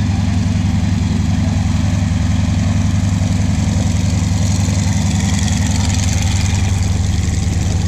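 North American T-6 Texan's nine-cylinder Pratt & Whitney R-1340 radial engine running at taxi power as the plane rolls along the grass, a steady low rumble. Propeller hiss grows brighter as it passes closest, about five to seven seconds in.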